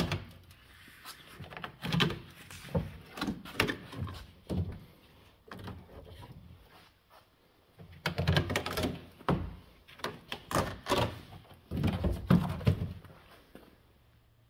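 Irregular knocks, taps and rustling from hands and a glove handling the bare sheet-metal body shell of a stripped car, with footsteps as the person moves around it. The sounds come in two spells with a short lull between, the second starting about eight seconds in.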